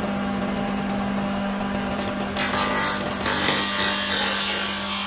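Spindle moulder running with a steady hum. About two seconds in, its cutter starts biting into a wooden board fed against it, adding a loud hissing cutting noise.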